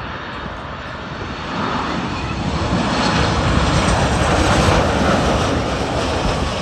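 Boeing 737 MAX 8's CFM LEAP-1B turbofan engines rushing past as the jet comes in to land. The sound swells to a peak about two-thirds of the way through, then eases off.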